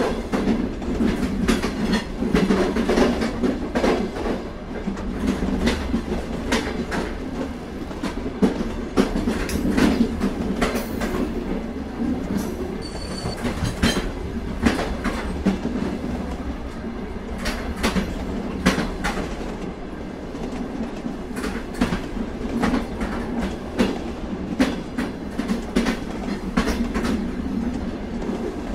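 Freight train cars rolling by on steel rails: a steady low rumble with an irregular clickety-clack of wheels over the rail joints.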